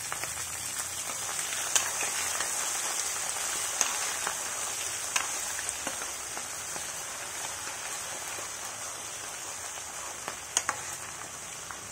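Chopped ginger and green chillies frying in hot sesame oil with nuts and dals: a steady sizzle with a few sharp pops.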